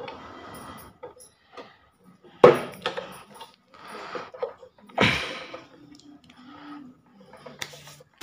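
End plate of a V-Guard 1 hp pump motor being fitted by hand onto the motor body: metal scraping and clunking, with two sharp knocks about two and a half seconds apart as the plate goes into place.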